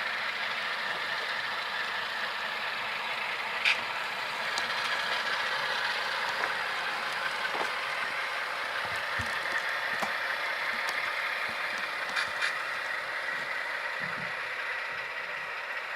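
Tsunami sound decoder in a model Alco diesel locomotive playing its diesel engine sound through a small onboard speaker: a steady running sound with little bass, with a few sharp clicks.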